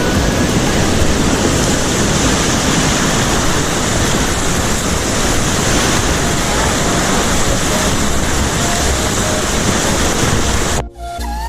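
Small waterfall rushing steadily, a dense, even roar of falling water. It cuts off abruptly near the end, giving way to pitched tones.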